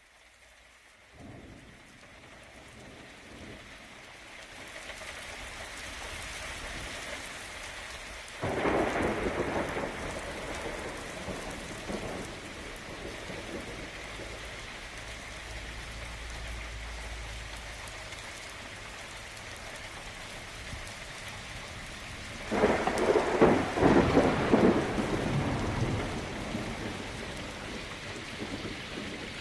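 Steady rain fading up out of near silence, with two rolls of thunder, the first about eight seconds in and a louder, longer one about twenty-two seconds in.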